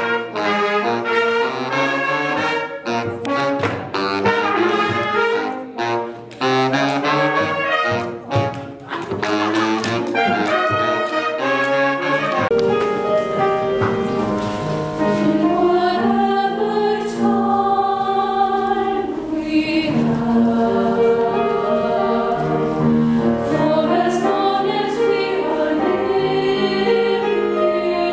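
A horn section of trombones, trumpets and a baritone saxophone plays a fast passage of short notes. About twelve seconds in it gives way to a show choir singing long held chords.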